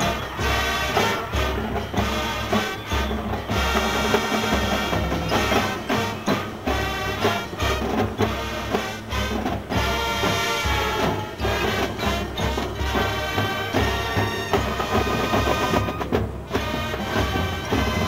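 High school marching band playing on the field: brass over a drumline of snare, tenor and bass drums keeping a steady beat. The sound comes from a worn VHS recording.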